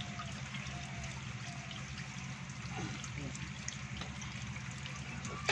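Steady trickling and light splashing of shallow water in a concrete tank crowded with live stinging catfish, over a low steady hum.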